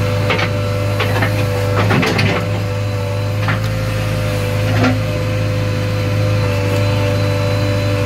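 JCB 3DX backhoe loader's diesel engine running steadily under hydraulic load, heard from inside the cab, with irregular knocks and clunks from the backhoe arm at work; the heaviest come about two seconds in and again near five seconds.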